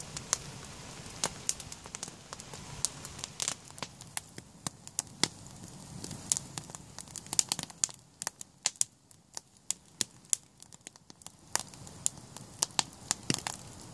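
Log campfire crackling, with many sharp, irregular snaps from the burning wood.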